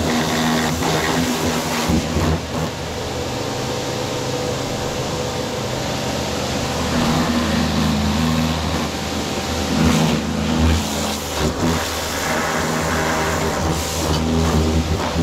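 Pressure washer running: a steady motor hum under the hiss of the water jet, with the hiss swelling and dipping as the spray moves.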